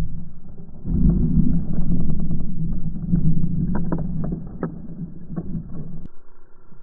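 Scooter engine running, its rear wheel spinning in snow and throwing it up, heard slowed down from slow-motion footage as a low drone with scattered clicks. It swells about a second in and cuts off abruptly near the end.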